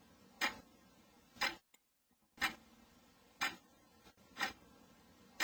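Analogue clock ticking steadily, one sharp tick about every second.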